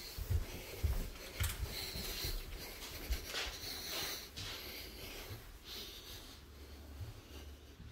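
Handling noise from a handheld phone being carried through a quiet room: soft bumps and rubbing on the microphone, with breathy hiss close to it. A low steady hum comes in near the end.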